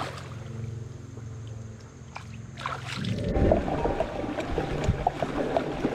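Shallow river water splashing and sloshing around a plastic fishing kayak as it is walked through the water, with small knocks on the hull and a low rumble. It starts about three seconds in, after a quieter stretch with a faint steady hum.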